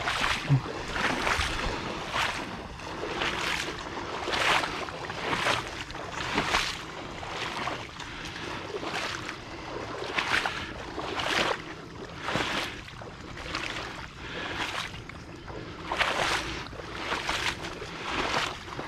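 A person wading through shallow swamp water. Each stride makes a sloshing swish, about one a second.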